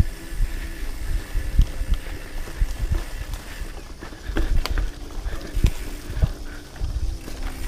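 Hardtail mountain bike jolting over bumpy grassy singletrack: irregular low thuds and rumble from the frame and handlebar-mounted camera, with a few sharp rattling clicks and wind on the microphone.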